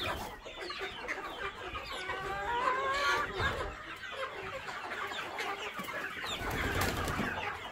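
A large flock of Sasso chickens clucking and calling together, many short calls overlapping without a break. One louder, longer call rising in pitch stands out about three seconds in.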